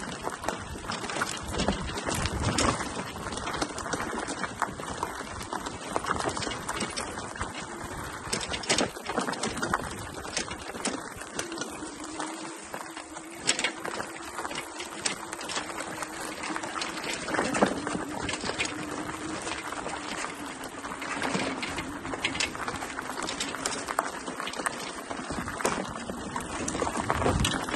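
A dog stroller pushed along a dirt woodland trail: its wheels crunch steadily over the ground, with frequent small clicks and knocks from the rattling frame.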